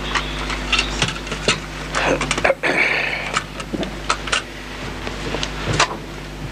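Steady electrical hum from the microphone and amplifier chain, with many scattered sharp clicks and knocks and a short burst of noise about three seconds in.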